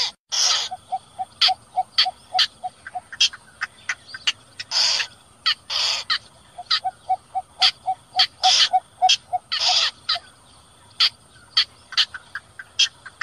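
Recorded lure calls of bitterns ('cò lép' and cinnamon bittern), played for night netting. Harsh rasping calls come every second or so, between runs of short low notes at about four to five a second and many sharp clicks.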